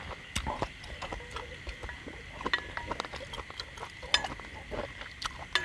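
Wooden chopsticks clicking and scraping against a stainless-steel bowl, with chewing of hot-pot beef: many short, irregular clicks over a faint steady high tone.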